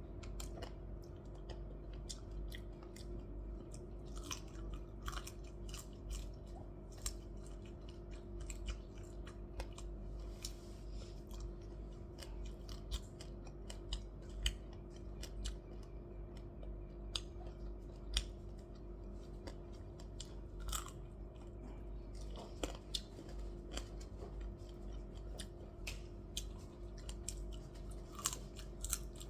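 Chewing and crunching on food, with many scattered sharp clicks over a steady low hum.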